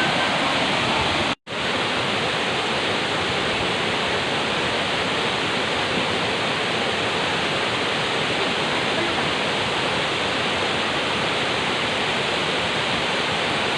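River water rushing steadily. The sound drops out completely for an instant about a second and a half in.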